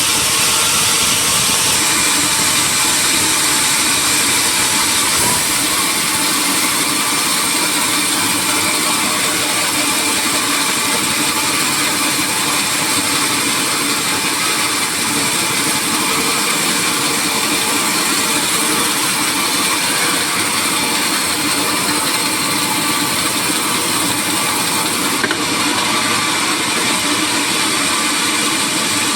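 Sawmill machinery running steadily, a loud continuous mechanical noise with a faint steady hum in it. There is a small click about 25 seconds in.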